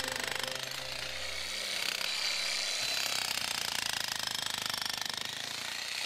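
Einhell 15 kg, 1600 W electric demolition hammer running, its chisel hammering rapidly and steadily into a concrete path and breaking it up.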